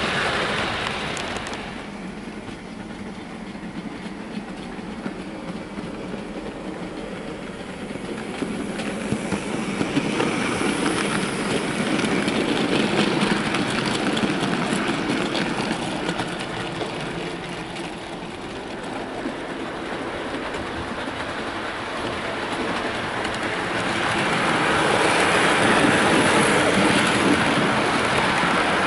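Model railway trains running on the layout's track: wheels clicking over the rail joints with a steady running rumble. The sound fades after the first train passes near the start, swells again as a goods train goes by midway, and is loudest near the end as a rake of passenger coaches passes close by.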